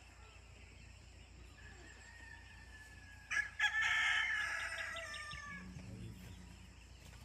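A rooster crowing once, starting about three seconds in: one long call that trails off.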